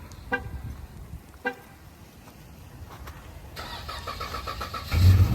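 Two short horn chirps, then the starter cranking for about a second and a half before the Dodge Charger GT's 3.6-litre V6 catches and starts loudly near the end. It is a cold start after two days sitting in freezing weather, and the engine is slow to catch.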